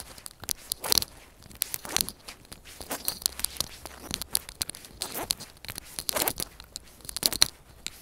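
Footsteps crunching on a gritty asphalt lane while walking, with irregular crackling and rustling; the strongest crunches come about once a second.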